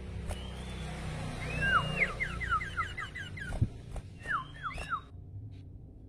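A caged sirpu singing: an arched whistled note, then a quick run of short falling notes, and three more falling notes about four seconds in.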